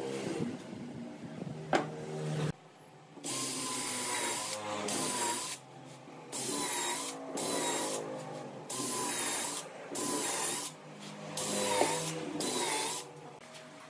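A woodworking tool working wood in repeated strokes, about eight of them, each about a second long with short pauses between. Before them, a steady machine sound cuts off suddenly.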